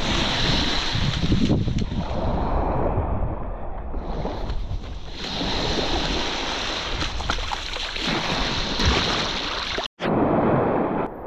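Wind gusting on the microphone over waves washing in, a loud, continuous rush with a heavy low rumble. The sound drops out for an instant about ten seconds in.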